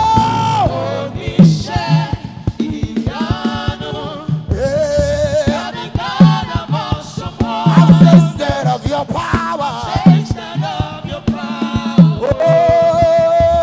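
Live gospel worship music: voices singing long held notes over a band, with regular drum hits.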